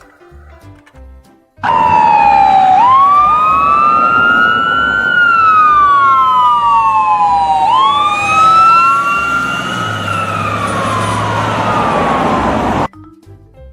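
Two ambulance sirens in wail mode sounding together, a second or so apart, each tone rising quickly and then falling slowly over several seconds, through two cycles. They start abruptly about a second and a half in and cut off abruptly near the end.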